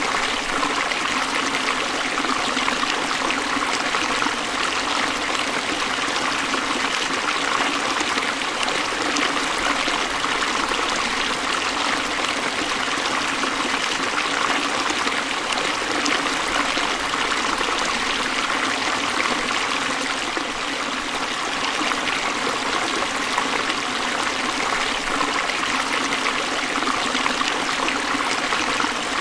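A forest stream running steadily, water splashing and trickling over rocks in an even, continuous rush.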